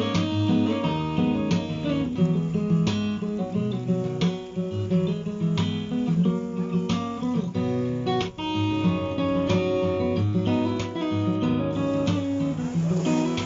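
Background instrumental music on plucked and strummed acoustic guitar, a steady run of notes.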